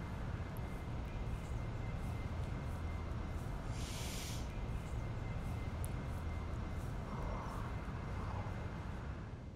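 Steady outdoor background noise with a low rumble, and a brief hiss about four seconds in.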